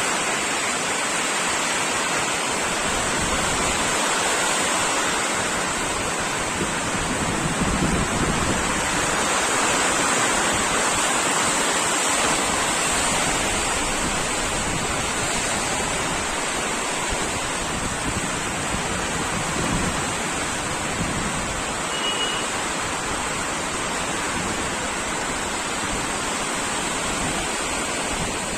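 Floodwater rushing and running steadily, a continuous loud wash of moving water.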